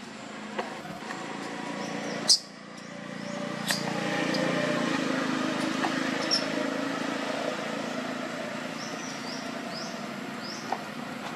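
A steady, vehicle-like rumble swells and eases off. A sharp click comes about two seconds in, and short high rising chirps are heard near the end.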